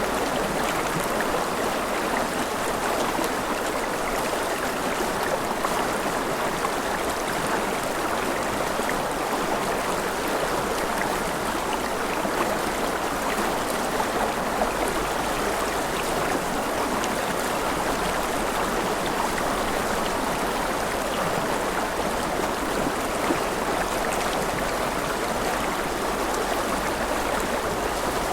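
Mountain river flowing over rapids: a steady, unbroken rush of water.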